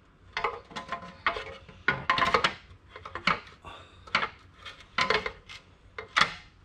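Aftermarket metal skid plate clanking and rattling against the underside of a Yamaha Ténéré 700 as it is held up and worked into position, about ten separate sharp metallic knocks.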